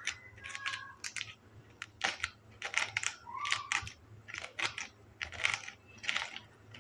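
Metal spoon scraping and scooping pineapple flesh out from the sides of the fruit: repeated short, wet scrapes, a few each second.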